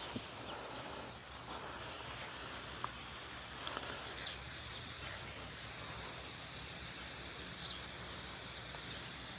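Outdoor ambience: a steady high insect drone with a few short bird chirps, one rising near the end.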